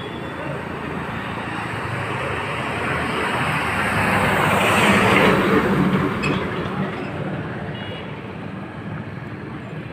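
Road traffic: a vehicle passes close by, its engine and tyre noise swelling to a peak about five seconds in and then fading away.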